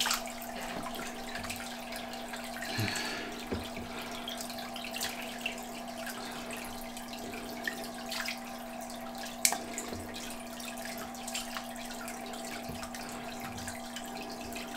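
Water splashing and dripping in a small room, with scattered small splashes over a steady hum.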